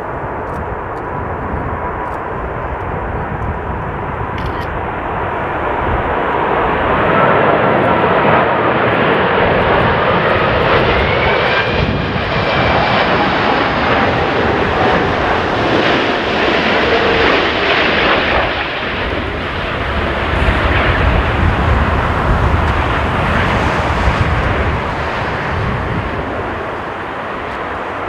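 Airbus A380-841's four Rolls-Royce Trent 970 turbofans on final approach, a jet engine noise that swells as the airliner passes close by, with whining tones gliding up and down in pitch in the middle. A heavier low rumble comes in late, then the noise eases near the end.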